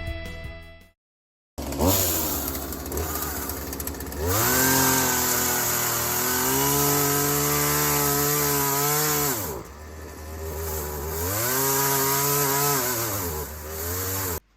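McCulloch two-stroke chainsaw engine running: idling, then revved up to high speed for about five seconds, dropping back to idle, then revved again for a couple of seconds before cutting off suddenly.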